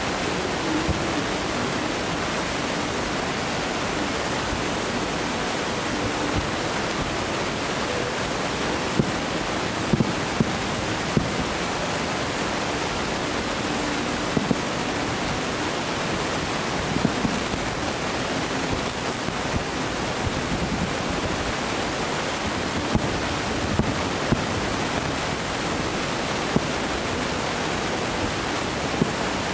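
Distant fireworks: short sharp pops and bangs at irregular intervals, about a dozen, over a steady rushing noise.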